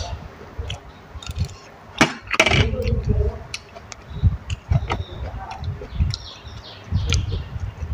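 Close-up eating and handling noises: a metal spoon clinking and scraping against a stainless-steel serving tray, the loudest clatter about two seconds in, with scattered clicks, knocks and low thumps throughout.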